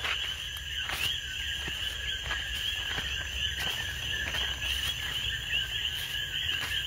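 Steady night chorus of calling insects: a dense, high, continuous shimmer of many small chirps, with faint scattered clicks.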